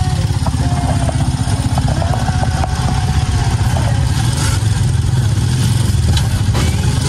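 Single-cylinder Honda motorcycle engine of a tricycle running steadily while riding, heard from inside the sidecar as a dense, even low rumble.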